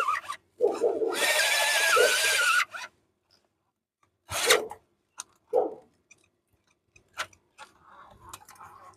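Electric drill with a step drill bit cutting into a steel plate, rasping with a wavering squeal, and stopping a little under three seconds in. After that come a few short, separate scraping bursts.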